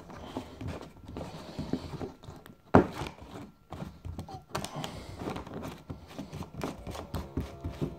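Knocks and clicks of a protein shaker bottle being handled, with one sharp thunk about three seconds in.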